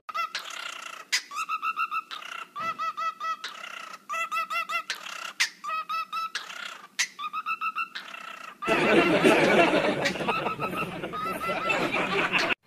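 A bird calling in quick runs of short, repeated chirps, all at much the same pitch. About two-thirds of the way in, a louder, noisier stretch begins, with fainter calls still heard in it.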